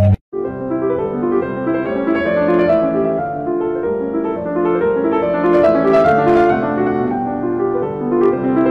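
Instrumental piano music: a flowing tune of overlapping held notes, starting right after a brief break near the beginning.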